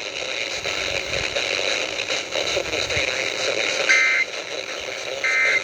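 Emergency Alert System end-of-message data bursts received over the radio: after about four seconds of radio hiss, two short buzzy bursts of the two-tone data code sound about a second and a half apart, marking the end of the alert.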